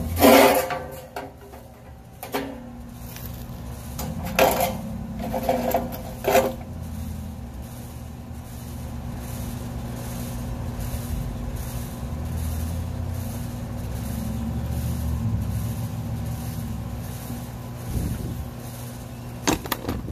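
Corrugated aluminium storm shutter panel clattering and banging as it is lifted off its mounting studs, with a few more metallic clanks about five and six seconds in and again near the end. A steady low hum runs underneath.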